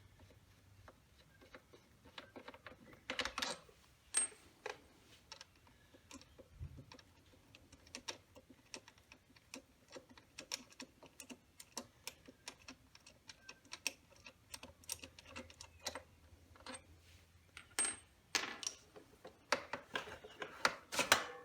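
Irregular metallic clicks and clinks of a socket wrench and tools working the front brake caliper mounting bolts loose on a motorcycle fork, with a busier cluster of clicks near the end.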